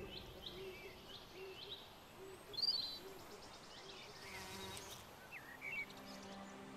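Garden ambience: small birds chirping in short, scattered phrases, the loudest nearly three seconds in, with a faint insect buzz.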